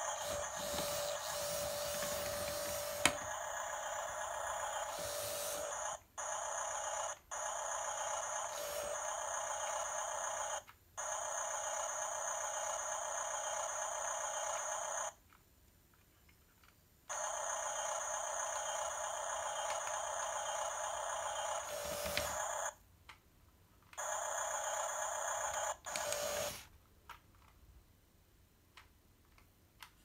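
Toy RC bulldozer's built-in electronic sound effect playing through its small speaker: a steady, tinny, tone-laden sound that cuts out and restarts abruptly several times, then stops a few seconds before the end.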